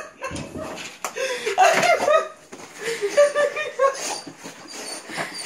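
A person laughing in short breaks, while a dog jumps up on them in greeting.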